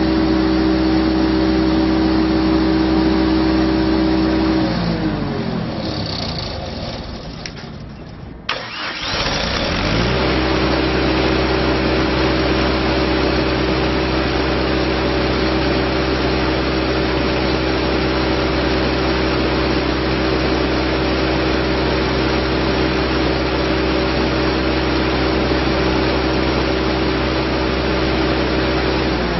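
Perkins four-cylinder diesel engine of a Lincoln Vantage 400 welder running steadily, then winding down and stopping about five seconds in. After a click it is running again by about nine seconds, coming quickly up to the same steady speed and holding there.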